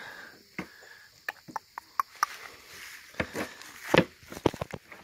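Scattered knocks and taps of goats moving and jostling on wooden boards close by, with one sharp knock about four seconds in.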